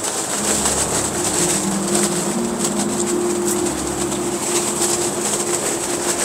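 Strong gale-force wind against a tent: a steady rush with low howling tones, and two gusts that rumble low, one about half a second in and one past the middle.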